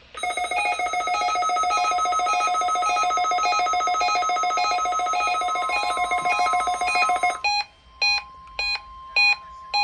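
A weather radio sounding its alert for a National Weather Service weekly test: a rapid, trilling electronic alarm for about seven seconds, then separate beeps about twice a second. Under both, the steady NWS warning alarm tone comes in about two seconds in.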